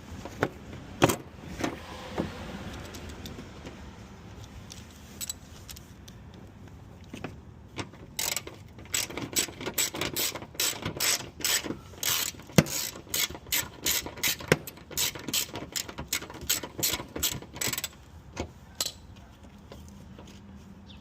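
Hand ratchet wrench clicking as a bolt is turned: a few separate clicks at first, then about ten seconds of rapid ratcheting strokes in quick runs.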